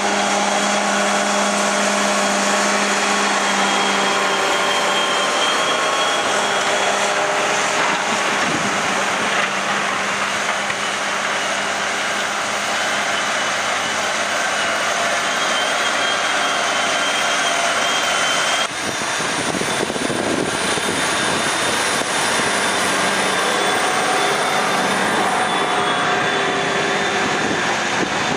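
John Deere 8310R and New Holland T7.315 tractors' six-cylinder diesel engines running under ploughing load, with a high steady whine over the engine note. The sound changes abruptly about two-thirds of the way in.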